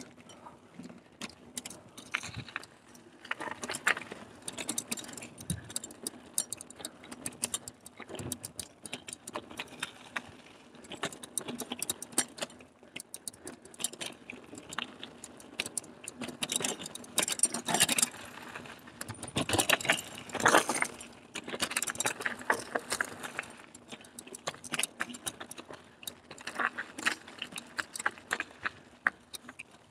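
Carrera Hellcat mountain bike rattling over a rough trail: a dense, irregular clatter of clicks and knocks from chain and parts, heaviest in spells around the middle.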